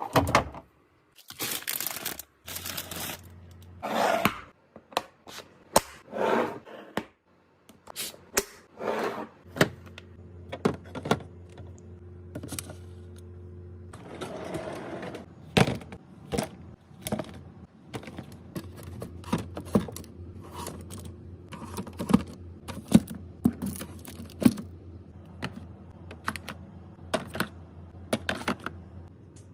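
Restocking clatter: containers, bottles and packaging being handled and set down, a string of irregular clicks, knocks and short scrapes over a low steady hum.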